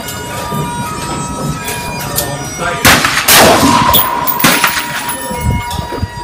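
Two loud rifle shots about half a second apart, a little before the middle, each with a short reverberant tail.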